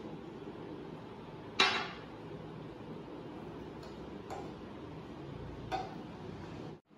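A utensil clinking against a mixing bowl while a spice marinade is mixed: three short knocks, the first loudest and ringing briefly, over a steady low background hum.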